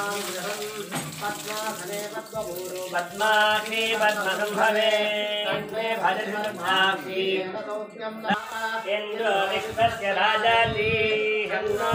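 Voices chanting Sanskrit mantras in a sung, melodic style during a water abhishekam, with a faint splash of water poured over stone idols near the start.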